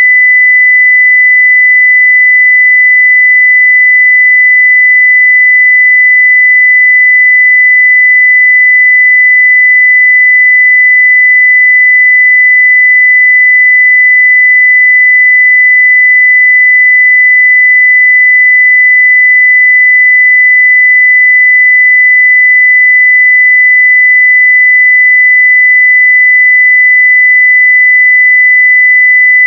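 A pure 2 kHz sine-wave test tone at full scale (0 dBFS), steady and unchanging.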